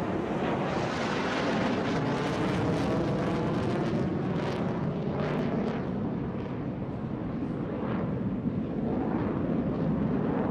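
Jet engine noise of F-16 fighter jets flying overhead, a steady, rushing sound that swells a little around the middle and eases slightly after.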